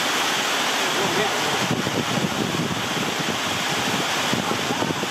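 Heavy rain falling: a dense, steady hiss.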